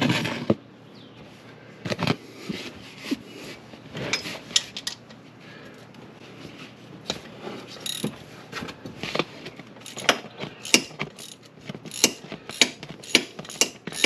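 Socket ratchet wrench clicking in short irregular runs as the bolts of an ATV's oil-filter cover are loosened. The clicks come thicker toward the end, and there is a clink of metal tools on a concrete floor at the start.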